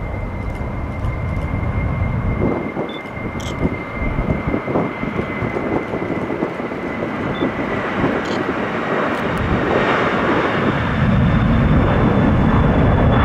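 FedEx Boeing 767-300F freighter on its takeoff roll, its twin General Electric CF6 turbofans at takeoff power: a continuous jet roar that grows louder toward the end, with a steady high whine that fades out about halfway through.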